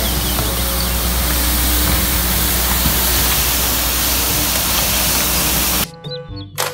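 Compact street sweeper running, its engine and rotating side brushes scrubbing the pavement as one loud, steady rushing noise over a low rumble. About six seconds in it cuts off abruptly to background music.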